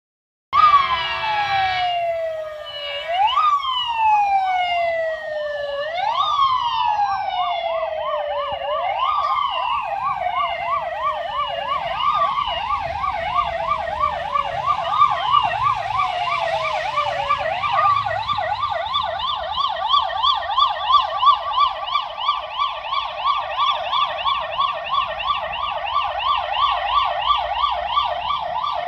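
Fire engine sirens. One wails slowly, rising and falling about every three seconds, and a second siren in a fast yelp joins it. About two-thirds of the way through only the fast yelp is left, and it cuts off suddenly at the end.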